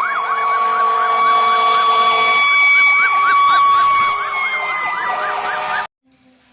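Electronic siren sound effect from a battery-powered toy emergency vehicle: a fast wailing sweep, about three rises and falls a second, over a steady high tone. It cuts off suddenly near the end.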